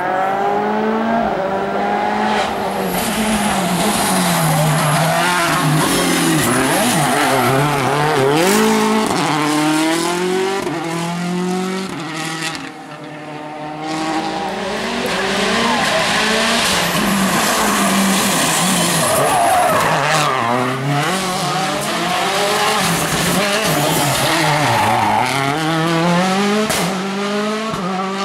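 Rally cars' engines revving hard on a tarmac stage, the engine note climbing and dropping again and again through gear changes and braking, with a brief lull about halfway.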